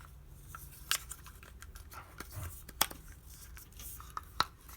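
Sharp little clicks and taps from handling a 3-D printed ball-jointed doll as its jointed limbs are moved, a scattered series with the loudest about a second in, near the middle and near the end.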